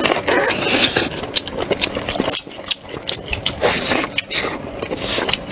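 Close-miked mouth sounds of someone eating: chewing and smacking, with many short wet clicks in quick, uneven succession.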